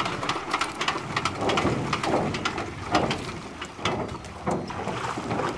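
A de Havilland Beaver floatplane's radial engine winding down after shutdown: a quick run of clicks and chuffs that slows and thins out as the propeller coasts to a stop.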